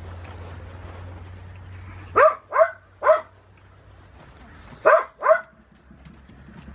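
A dog barking: five short barks, three in quick succession about two seconds in, then two more close together about five seconds in.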